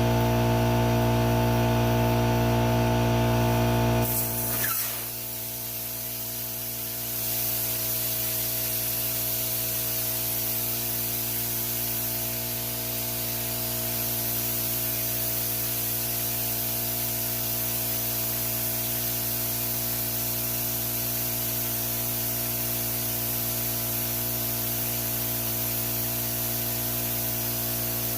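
An electric motor, likely the air compressor, hums steadily and winds down about four and a half seconds in. A steady hiss of compressed air follows, as a truck tire is aired up.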